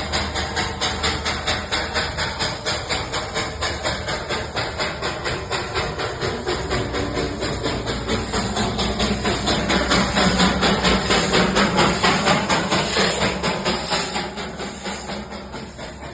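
Darjeeling toy train running with rapid, regular chuffing beats and hiss, about four a second, swelling in the middle and fading near the end.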